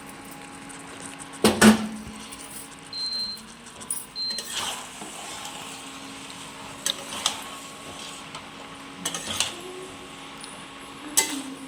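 Metal kitchen utensils clattering: pots, dishes and spoons knocked and set down several times, the loudest clank about a second and a half in. Two short high beeps come a little later, over a faint steady hum.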